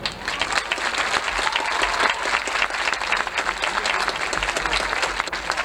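Stadium crowd applauding and cheering as the marching band's show ends.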